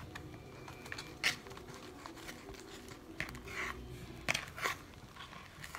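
Homemade glue-and-detergent slime being worked by hand in a bowl: soft, scattered clicks and squishes at irregular intervals.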